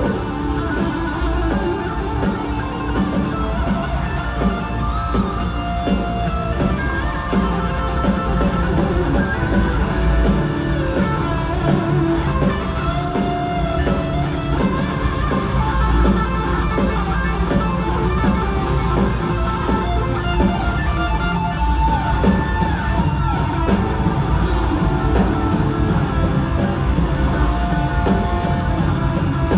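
Metal band playing live: heavy electric guitars over a full band in an instrumental passage with no vocals.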